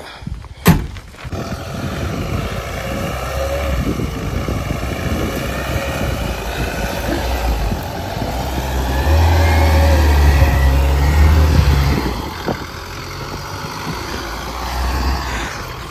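Mahindra Thar's diesel engine pulling the jeep through soft ploughed soil in four-wheel drive, after a sharp knock of its door shutting about a second in. The engine note builds and gets loudest past the middle, then eases off.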